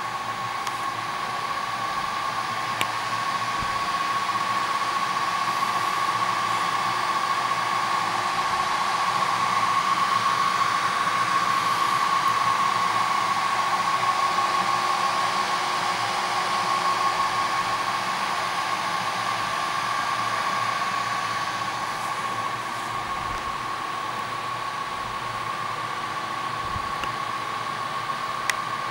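Cooling fans of a Dewon Lipolaser MEGA diode-laser lipolysis machine and its vented treatment pads running: a steady whirring with a thin high whine, swelling a little about halfway through and easing off again.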